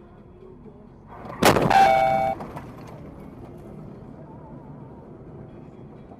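A vehicle collision: a sharp crash about a second and a half in, then under a second of crashing noise with ringing tones that cuts off abruptly. Steady road and engine noise runs underneath.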